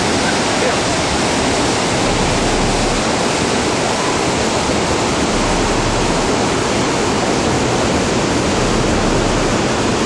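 Large waterfall and the wide rocky river below it: a loud, steady rush of falling water.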